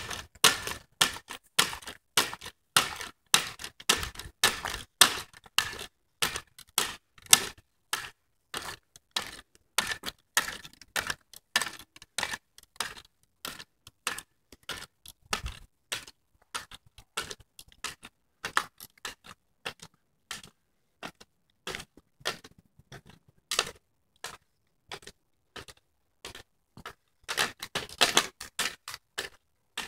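Spring-loaded jumping stilts clacking on asphalt with each stride: a rapid run of sharp clicks, about two to three a second, sparser and fainter for a while past the middle and bunching densely near the end.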